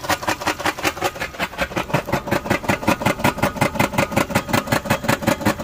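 Kia four-cylinder engine idling with a loud, fast, even knock, about eight a second, from its failed bottom end: oil consumption wore out the rod and main bearings.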